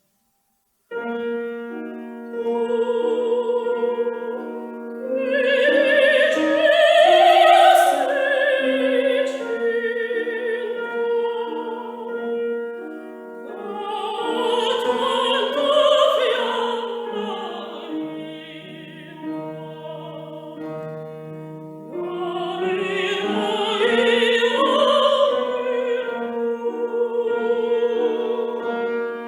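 Operatic soprano singing long phrases with wide vibrato, accompanied by piano, beginning about a second in. Her voice swells loudest a few seconds later.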